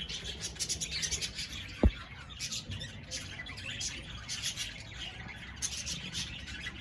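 A flock of budgerigars chattering continuously with rapid high chirps and squawks. A single low knock sounds about two seconds in.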